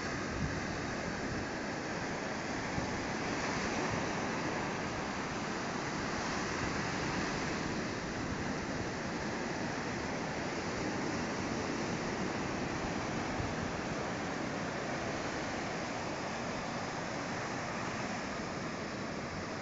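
Surf breaking offshore and washing up a sandy beach: a steady, continuous rush of waves.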